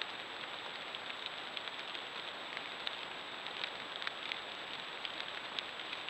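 Lowland paca moving and rooting in dry leaf litter: scattered light crackles and ticks, a few sharper ones near the end, over the trail camera's steady hiss and a faint constant high whine.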